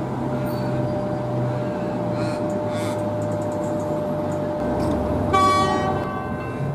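X'Trapolis electric train standing at a platform with a steady hum, then one short horn toot lasting about a second, a little after five seconds in.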